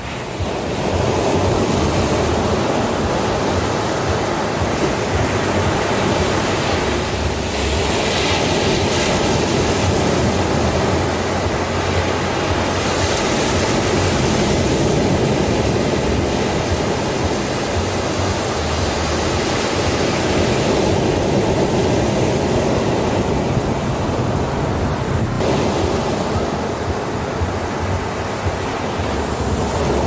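Ocean surf breaking and washing up the shore: a continuous rush of water that swells and ebbs every few seconds as each wave comes in.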